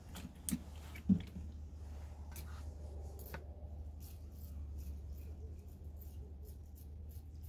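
A spoon stirring and scraping through rice soaking in water in a bowl as the rice is washed. A few separate knocks come in the first seconds, then a quick run of soft scrapes and clinks, over a steady low hum.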